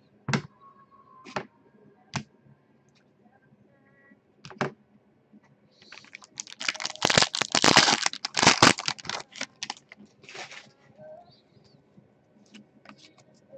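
Foil wrapper of a trading-card pack crinkled and torn open, a dense crackle lasting about four seconds, loudest around the middle. A few single taps come before it.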